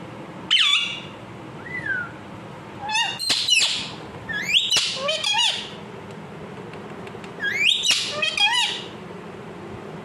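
Blue Indian ringneck parakeet calling: a sharp call about half a second in, a soft falling whistle, then three bursts of quick squawks and chirps that glide up and down in pitch.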